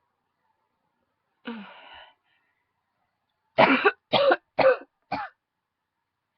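A woman's short breathy sound, then four coughs in quick succession, the last one weaker.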